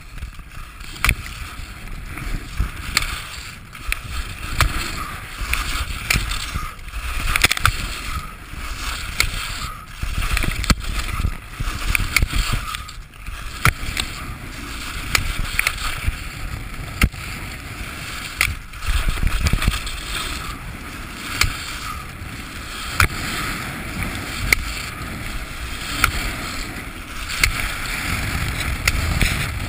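Alpine skis scraping and carving on hard-packed snow at speed through giant slalom turns, the hiss swelling and fading with each turn, with scattered sharp clicks.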